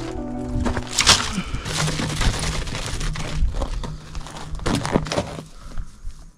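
Dry grass and bark tinder crackling and crunching as it is handled and bundled, with scrapes and small knocks on loose gravel; the noise eases off near the end.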